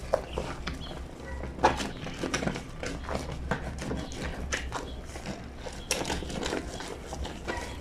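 Wet fleece sheets being scrubbed and slapped by hand on a granite lavadero washboard: irregular wet knocks and rubbing.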